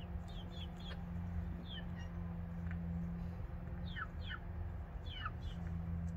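Birds chirping: short, high calls that slide downward, several coming in quick pairs. A steady low hum runs underneath.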